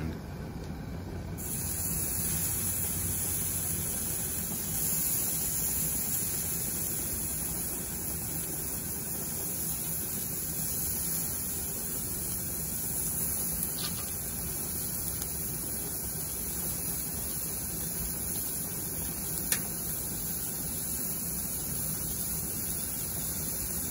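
Raw chicken skewers sizzling on a hot gas grill, a steady hiss that starts about a second in. A faint tick and, later, a sharper click break through it.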